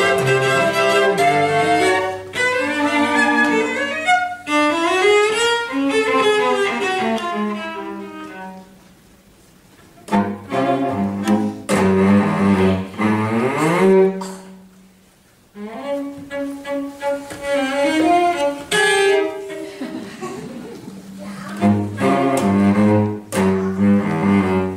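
Cello ensemble playing: quick runs and upward sliding glides, broken by two short pauses, about nine and fifteen seconds in.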